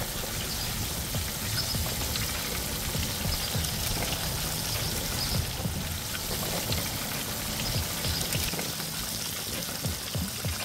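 Flour-dusted whole tilapia deep-frying in a pan of hot oil: a steady sizzle with many small crackles and pops.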